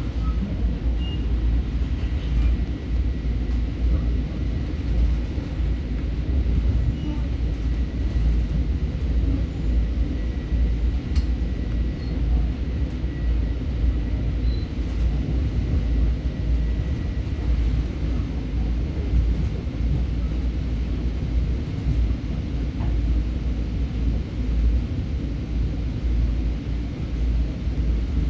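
Steady low rumble of a Long Island Rail Road electric commuter train heard from inside the passenger car as it rolls along the track. A faint, thin high whine runs through the first half.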